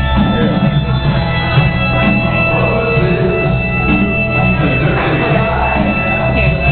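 Loud rock music with guitar over a steady, pulsing bass beat.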